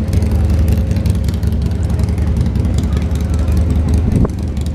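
Small plastic skateboard's wheels rolling over a concrete sidewalk, a steady low rumble, with one sharp clack about four seconds in.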